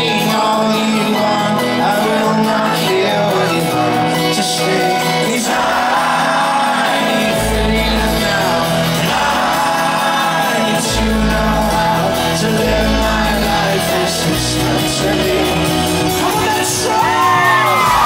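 Live folk-rock band music: strummed acoustic guitar with singing and crowd shouts. Low bass notes come in about seven seconds in, and whoops rise from the crowd near the end.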